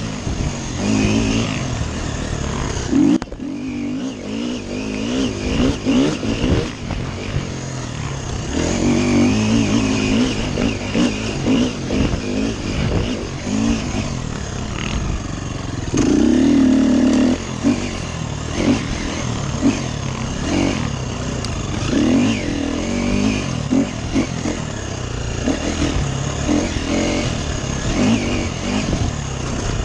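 Dirt bike engine revving up and down as it is ridden hard off-road, the throttle opening and closing over and over. It eases off briefly about three seconds in and pulls hardest about halfway through.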